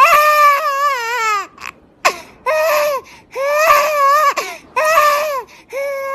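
Newborn baby crying: a run of loud, high-pitched wails, each one rising and falling, with short breaths between.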